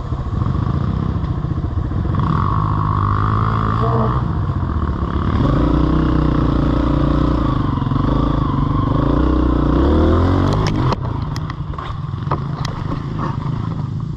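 Off-road vehicle engine running and revving, its pitch rising and falling under throttle, then dropping off about eleven seconds in, followed by a string of sharp clattering knocks.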